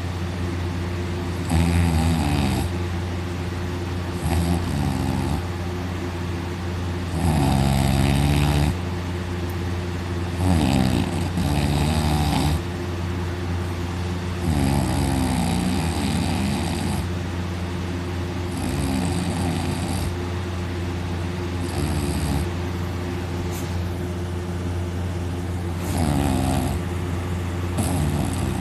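A man snoring very loudly in deep sleep, lying on his back with his mouth wide open, a harsh snore about every three seconds. A steady low hum runs underneath.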